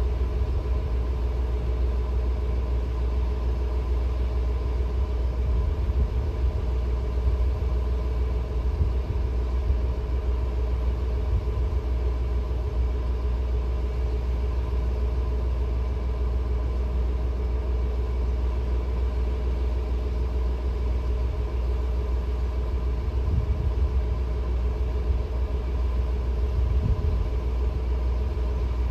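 An engine idling steadily: a constant low rumble with an even hum over it that does not change.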